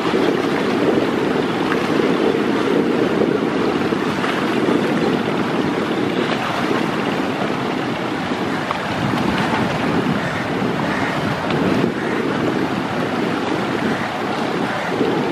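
Steady wind buffeting the microphone over the rush of rough, choppy river water as a passenger launch pushes through the waves with its bow wave breaking.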